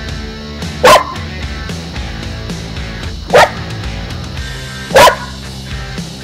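A dog barking three single, loud barks: about a second in, past the middle, and about five seconds in, over steady background music.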